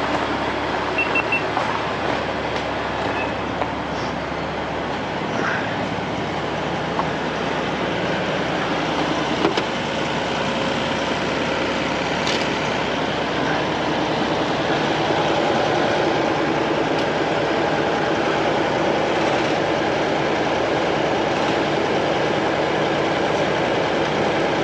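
Heavy diesel engines of a wrecker and a mini excavator running steadily during a winch recovery, a little louder past the halfway point.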